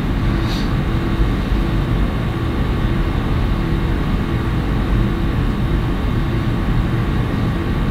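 Steady low rumbling background noise with a faint hum running through it, with no distinct event in it.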